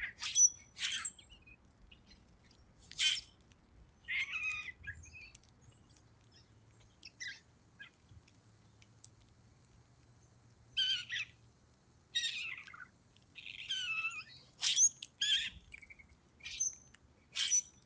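Grackles calling: about a dozen short, noisy calls spread irregularly, a few of them longer, scratchy phrases.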